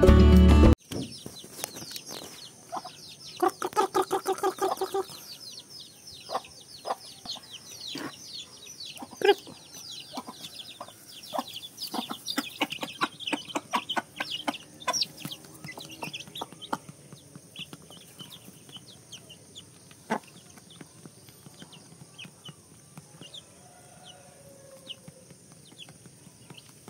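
Mother hen clucking while her chicks peep around her as they peck at food, with a quick run of clucks about four seconds in. The chicks' peeping is busiest in the first half and thins out after about sixteen seconds.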